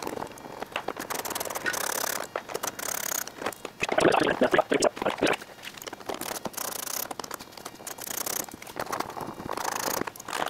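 Plastic splash shields being unhooked from a pickup's frame by hand: irregular clicking, scraping and rustling of plastic fasteners and shield panels, loudest about four seconds in.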